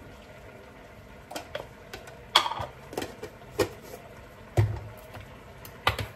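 Kitchen handling sounds: a series of sharp clicks and knocks as a small plastic spice container and a can are picked up and set down on a stone countertop, the loudest about two and a half seconds in and a duller thump near the middle. Underneath runs a steady low hiss from the pan of milk simmering on the stove.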